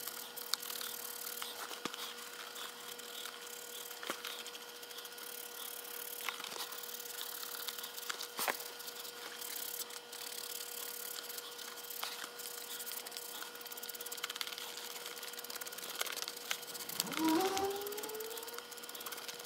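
Hands rubbing and flexing a Wilson A2K leather baseball glove as conditioner is worked into the leather to keep it supple: faint rubbing and light ticks from the leather and lacing over a steady faint hum. Near the end comes a short creak that rises in pitch.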